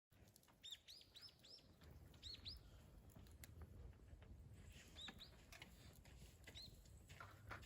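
Small birds chirping faintly: short, high, arched notes in quick runs of two to four, several times over, with a few faint clicks and a low rumble underneath.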